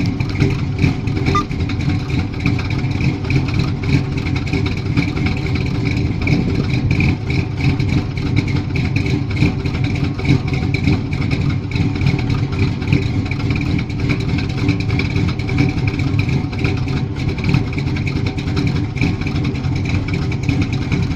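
Chevrolet 454 big-block V8 engine running at a steady speed: a deep, even rumble with no revving.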